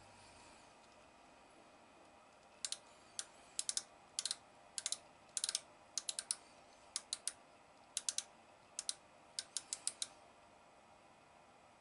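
Micrometer ratchet stop clicking in quick bursts of two to five sharp clicks, repeated for about seven seconds from a couple of seconds in, as the thimble is turned to close the spindle onto the turned test bar; the ratchet slipping is the sign that the set measuring pressure has been reached.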